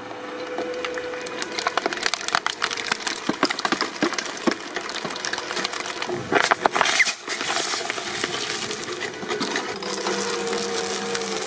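Industrial shredding machine breaking up material: a dense, irregular run of cracking and snapping over the steady hum of the machine, with a louder cluster of cracks about two-thirds of the way through.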